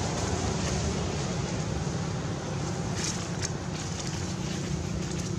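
Steady outdoor rumble of wind on the microphone, with a few brief clicks about three seconds in.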